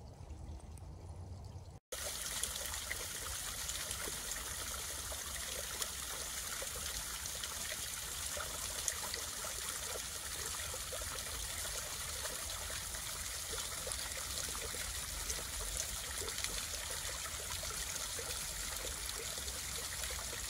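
Water trickling and splashing steadily down a small stepped waterfall over stone ledges, starting after a brief break about two seconds in.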